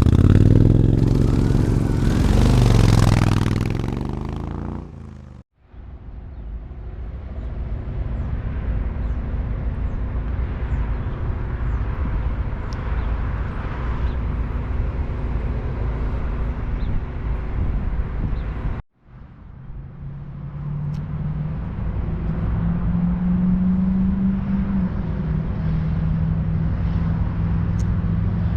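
Harley-Davidson V-twin motorcycle engines revving, with the pitch rising and falling, then running steadily with a low rumble. The sound cuts off abruptly twice.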